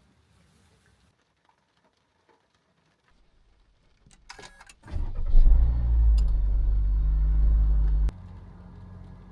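Car engine starting: a few clicks, then the engine catches and runs loudly for about three seconds before dropping suddenly to a quieter steady idle.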